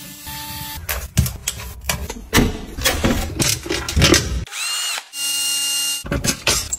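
Cordless drill running briefly, then clicks and knocks as hard plastic parts and screws are handled. About four and a half seconds in, the drill spins up with a rising whine and runs steadily for about a second.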